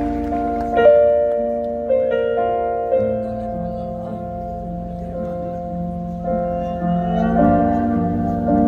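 Slow piano chords played live, each struck and left to ring, the first few about a second apart, with further notes and sustained tones building up under them.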